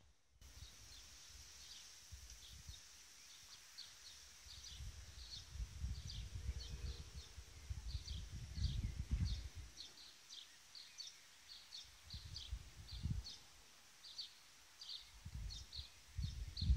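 Faint outdoor sound: a bird repeating a short high chirp about twice a second over a steady high hiss, with a low rumble swelling in and out through the middle.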